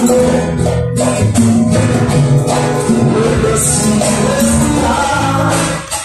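Live band playing Brazilian popular music: sustained pitched instruments over a bass line, with high percussion strokes keeping the rhythm.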